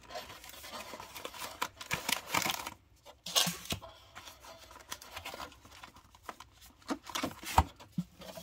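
Foil trading-card packs and a cardboard box being handled: irregular crinkling and rustling with scattered light taps as packs are lifted out of the box.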